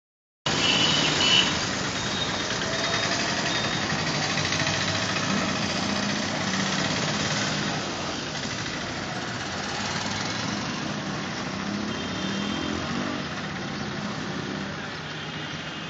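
Steady street traffic noise with a vehicle engine running. Brief high tones sound near the start and again near the end.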